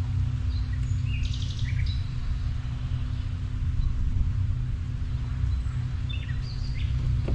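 Birds chirping and calling in short high bursts, a few about a second in and more near the end, over a steady low rumble and a faint steady hum.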